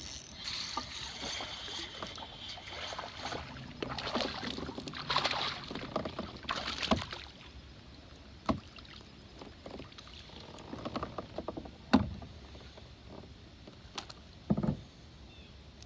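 Water splashing and sloshing around a kayak, with rustling and bumping over the first several seconds, then a few sharp knocks against the hull later on.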